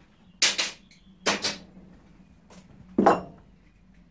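Three short metal knocks and clatters from handling the clamp screw of a small Stanley 742 clamp-on vice: one about half a second in, a quick double about a second later, and the loudest and deepest about three seconds in.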